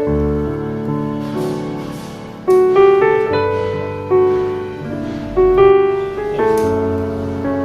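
Background piano music: slow, gentle chords struck every second or so and left to fade.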